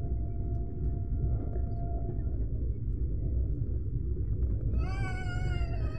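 Train running on the rails with a steady low rumble. About five seconds in, a high, wavering squeal from the wheels on the rails sets in.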